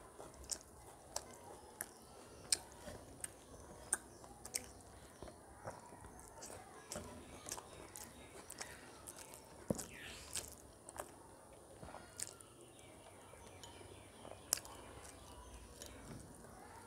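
A person chewing a mouthful of rice mixed with chicken curry, with irregular sharp wet mouth clicks and lip smacks roughly every half second to second.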